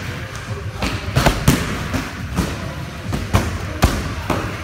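Kicks and strikes landing on padded kick shields: about seven sharp thuds at uneven intervals, from more than one pair training at once.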